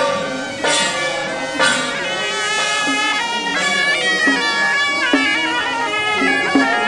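Traditional Taiwanese procession music: wind instruments play a stepping melody of held notes. Cymbals clash a few times in the first second and a half, and a low drum beat about every 0.7 s joins from about four seconds in.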